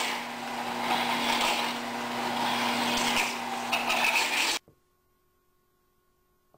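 Twist drill in the tool-post chuck of a CNC-converted Buffalo engine lathe, peck drilling into a spinning metal workpiece: a noisy cutting and scraping sound that rises and falls over a steady low hum. The hum drops out about three seconds in, and the whole sound cuts off suddenly a little past halfway, leaving near silence.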